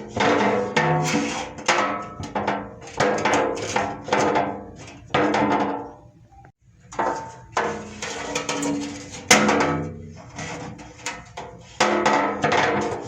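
Metal struck again and again, each hit ringing with several tones that die away over about a second, with a short pause about six seconds in.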